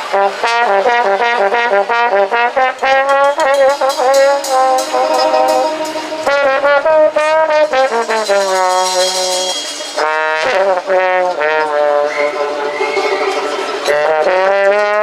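Trombone solo played with a plunger mute, running phrases of notes that waver and bend, over banjo strumming and drums in a swing jazz band.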